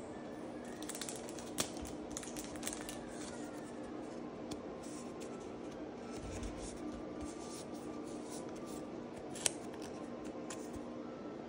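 Pokémon trading cards being handled and slid across one another, with crisp papery rustles and small clicks, and two louder snaps, one about a second and a half in and one near the end. A steady low hum runs underneath.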